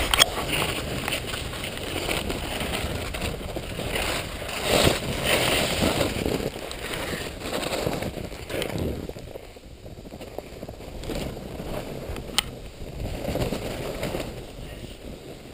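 Snow hissing and crunching under a rider sliding slowly over it, louder at first and easing after about nine seconds, with a sharp click near the end.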